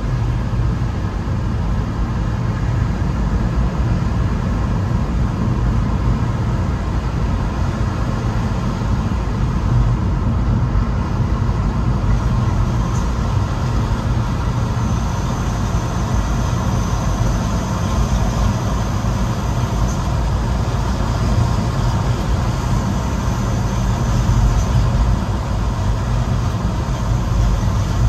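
Steady rumble of road and engine noise from cars and a large truck moving together in traffic, heard from a moving car. A faint high whine sits over it through the middle stretch.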